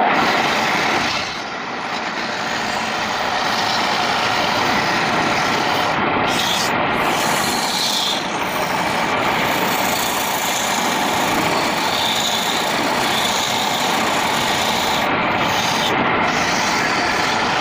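Coarse 100–120 grit sandpaper held by hand against a wooden bowl spinning on a homemade wood lathe, giving a steady rasping hiss that dips briefly about a second and a half in.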